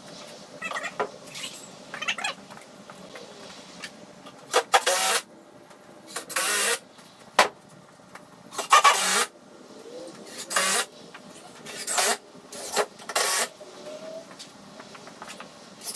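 Cordless drill driving screws into the wooden table, run in about eight short bursts of half a second or so, mostly in the second half.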